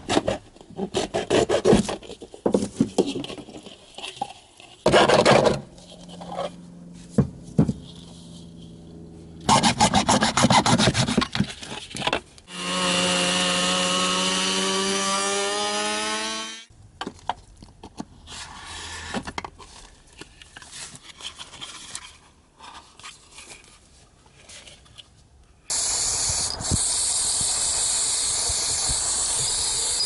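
A hacksaw cutting into a hollow plastic ball float in rapid rasping strokes. Then a handheld rotary tool whines as it grinds out a hole in the float, its pitch sagging slightly under load. Near the end an aerosol spray can hisses steadily.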